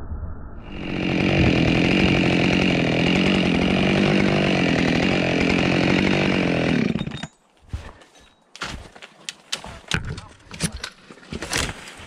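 Two-stroke chainsaw running at a steady pitch, cutting off about seven seconds in. Afterwards, footsteps crunching and snapping through fallen spruce branches.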